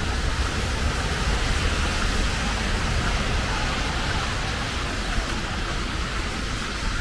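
Steady heavy rain falling on an umbrella held overhead, with a low rumble underneath.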